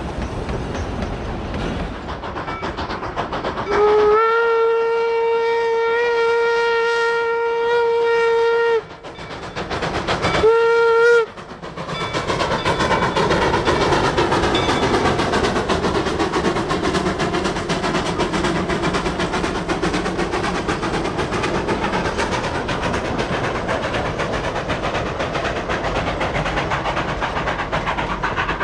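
Steam whistle of Denver & Rio Grande 425, an 1895 Baldwin narrow gauge steam locomotive: one long steady blast about four seconds in, then a short blast a second and a half later. After that comes the train's steady running noise, with exhaust and the clatter of the cars.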